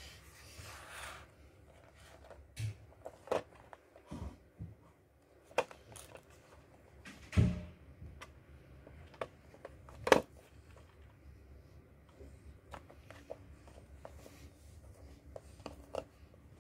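Small cardboard box of a model bus being handled by hand: a short rustle and slide at the start, then scattered clicks and knocks as it is picked up, turned and set down on a hard floor. The loudest is a low thump about seven seconds in, followed by a sharp knock about ten seconds in.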